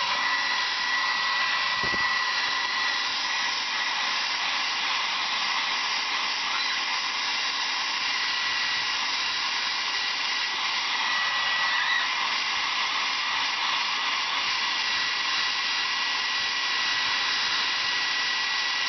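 Hair dryer blowing steadily, with a constant high whine from its motor over the rush of air.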